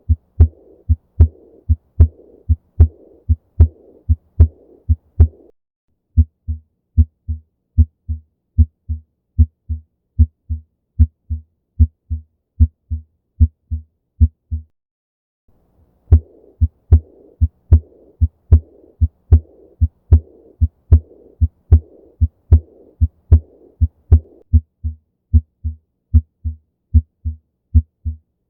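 Heart sounds, a steady run of lub-dub beats, alternating between a heart with aortic regurgitation and a normal heart. For the first five seconds or so, and again from about 16 to 24 seconds in, a soft murmur fills the gaps between beats: the leaking aortic valve. In between, and near the end, the beats are clean with no murmur; a brief silence falls about halfway.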